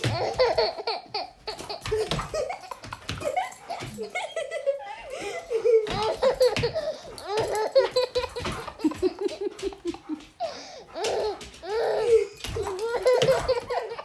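People laughing on and off, in short rapid runs, with scattered sharp knocks and thumps.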